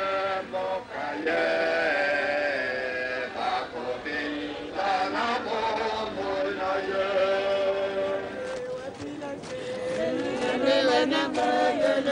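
Voices singing a slow, chant-like song with long held notes. Toward the end the pitch wavers more.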